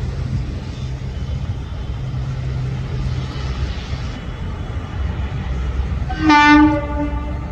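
Freight train of twin WCAG-1 electric locomotives and loaded BOXN wagons crossing a steel girder bridge, giving a steady low rumble. About six seconds in, a loud locomotive horn sounds and holds.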